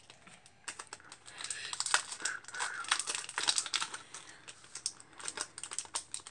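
Foil wrapper of a Pokémon Sun & Moon booster pack crinkling and crackling in the hands as it is worked and torn open, a quick irregular run of small crackles starting just under a second in.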